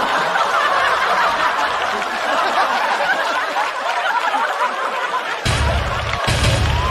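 A large studio audience laughing hard, many voices at once. Near the end a deep low booming sound comes in, with a short break in it.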